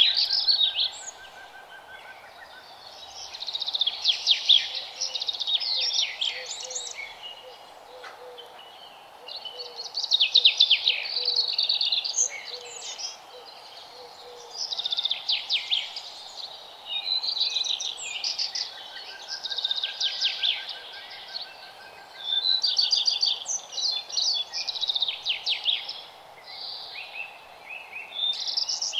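Songbird singing: bursts of rapid, high trills and chirps a second or two long, repeated every few seconds, over a steady low hiss.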